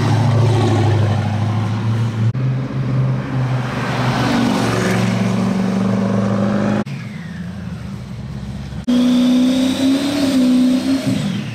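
Race vehicle engines revving and accelerating hard, heard in several abruptly cut segments with a quieter stretch in the middle. Near the end a high whine rises and then falls away as an engine comes off the throttle.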